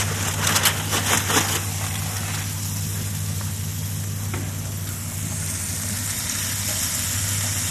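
Aluminium foil crinkling in short crackles as it is pulled back off a smoked whole hog on the smoker grate, then a steady sizzling hiss from the cooker with a low hum underneath.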